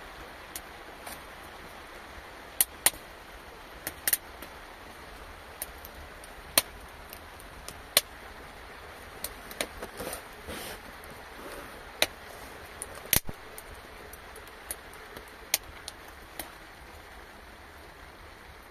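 Steady rain hiss with irregular sharp taps and ticks, roughly one a second, some much louder than the rest.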